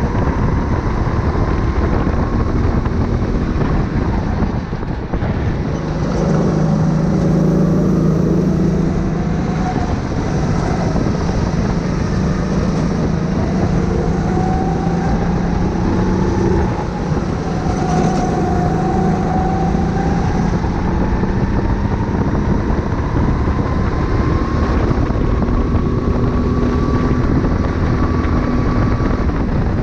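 Go-kart engine running hard on track, its pitch climbing and falling repeatedly as the kart accelerates out of corners and the throttle is lifted into them, with a brief drop about five seconds in.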